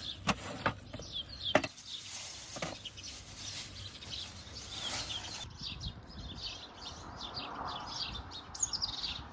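Small birds chirping in quick, short, falling notes, growing busier about halfway through. A few sharp knocks come in the first three seconds.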